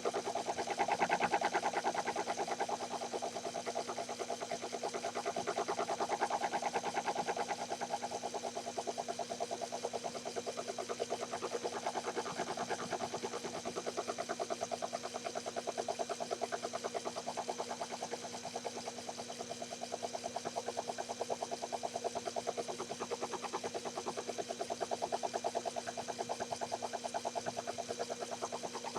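Small lathe's motor running with the leadscrew power feed engaged, traversing the carriage: a steady motor hum and whine with a fast, even ticking.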